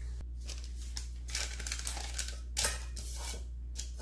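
Spatula folding airy chiffon batter in a glass bowl: a run of irregular soft, wet swishing and scraping strokes, over a steady low hum.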